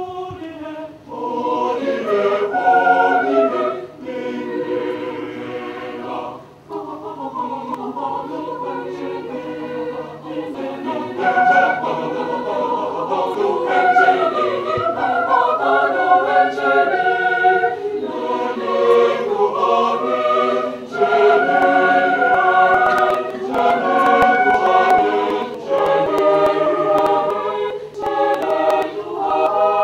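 Mixed choir of men's and women's voices singing unaccompanied in several parts, phrase by phrase, with brief breaths between phrases.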